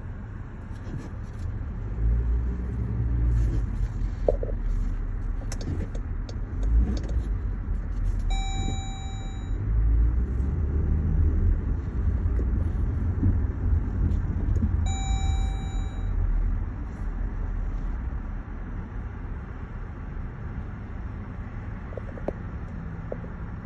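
Low rumble of road traffic, with a steady pitched tone sounding twice for about a second and a half, about six seconds apart.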